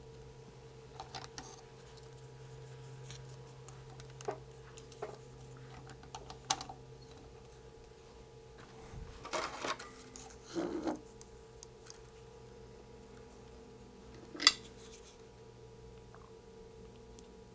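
Scattered light clicks and taps of small tools and parts being handled while soldering a kit circuit board, with a cluster of clicks around the middle and one sharper tap about fourteen seconds in. A faint steady hum runs underneath.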